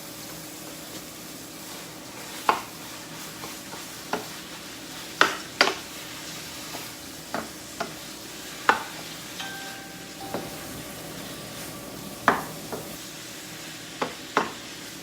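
Turkey meat sizzling as it browns in a skillet while it is stirred, with sharp knocks of the utensil against the pan every second or two.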